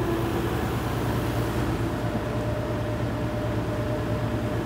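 John Deere tracked excavator's diesel engine running steadily with a low hum while the arm moves, with a faint hydraulic whine that shifts higher about two seconds in.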